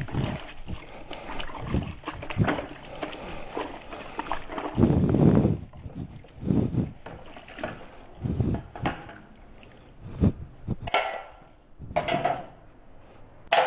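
Water sloshing and splashing in a bucket as a sponge is scrubbed over a steel drywall knife to wash off joint compound, in irregular wet strokes. Two sharp knocks near the end.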